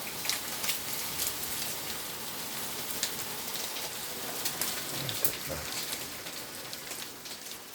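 Hailstorm: hailstones falling and striking the ground, a steady hiss dotted with many sharp ticks, easing off near the end as the shower stops.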